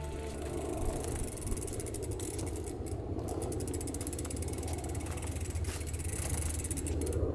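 Bicycle freewheel hub clicking rapidly as the bike coasts, over the low rumble of tyres rolling on a dirt track.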